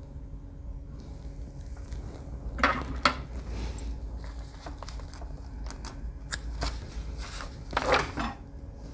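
Scissors snipping a clump of red bucktail hair from the hide, a few short crisp snips and rustles, about three seconds in and again near the end, over a low steady hum.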